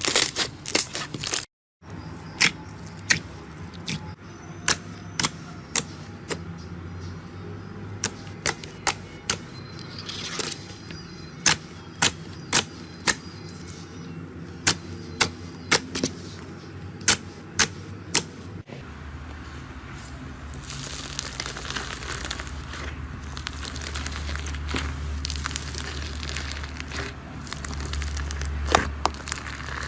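Slime being handled: sharp popping clicks in quick runs of two to four, then after a cut near the middle a denser, continuous crackling as the slime is squeezed and worked.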